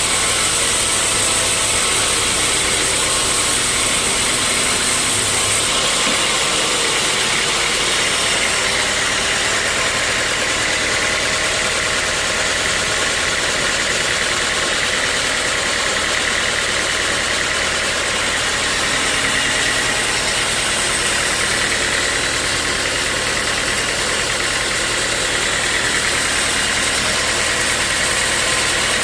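Sawmill machinery running steadily, an engine-like drone with a constant high whine; the tone shifts slightly about six seconds in.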